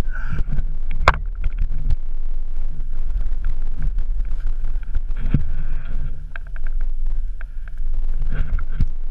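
Wind buffeting an action camera's microphone, a steady low rumble, with scattered knocks and scrapes from the camera pole and boots on snow and rock; the sharpest knock comes about a second in.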